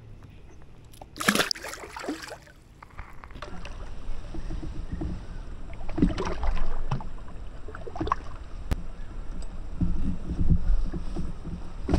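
Water and handling sounds aboard a kayak: a short noisy burst like a splash about a second in, then scattered knocks over a low, uneven rumble of wind and water that grows louder toward the end.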